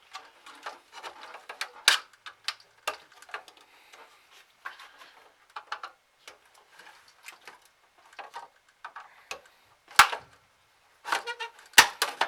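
Irregular clicks, scrapes and knocks of plastic as the casing of an Xbox 360 console is worked apart by hand. A few sharper snaps come about two seconds in, near ten seconds and near the end.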